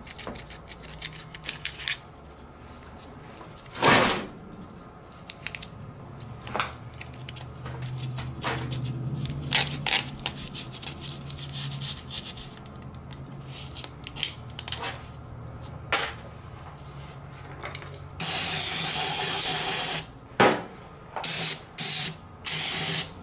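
Small hand tools scraping and clicking on an ATV engine crankcase as the old base gasket is cleaned off, with a sharp knock about four seconds in. Near the end an aerosol cleaner sprays in one steady two-second blast, then three short bursts.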